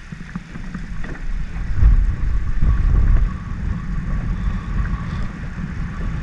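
Wind buffeting the microphone, loudest about two to three seconds in, over a faint steady whine.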